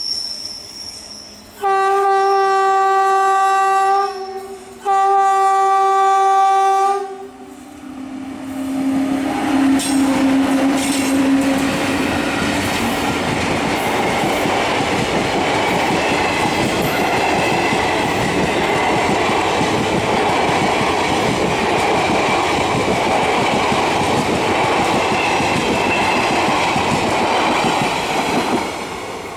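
Indian electric locomotive horn sounding two long steady blasts. Then the express train runs past at speed behind its twin WAP-7 and WAG-5 electric locomotives: loud wheel-on-rail rumble with clickety-clack from the coaches, fading away near the end.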